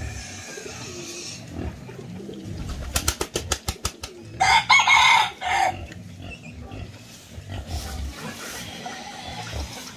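A rooster crows once, about four and a half seconds in; this is the loudest sound. Just before it comes a quick run of about eight sharp clicks, and low grunting and snuffling from wild boar piglets feeding runs underneath.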